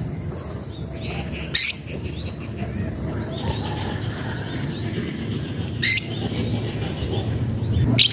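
A bird known locally as the labet gives short, loud, harsh calls, three times about four seconds apart: its call to challenge a rival, over faint background chirping and a steady low rumble.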